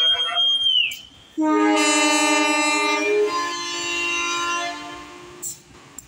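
Diesel locomotive's air horn sounding one long chord-like blast. It starts suddenly about a second and a half in, is loudest for about two seconds, then thins and fades away. Before it, a high thin steady tone bends down and stops about a second in.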